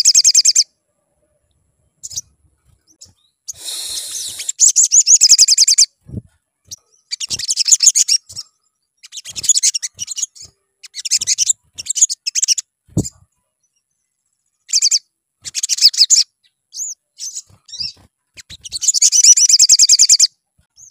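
Male olive-backed sunbird singing: repeated bursts of rapid, high-pitched trilling chatter, each one to two seconds long, with short pauses between them. Two soft low knocks come through, about six and thirteen seconds in.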